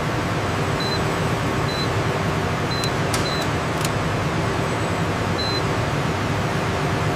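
Steady industrial machinery hum with about five short, high electronic beeps from a control panel as its buttons are pressed, and a couple of sharp clicks near the middle.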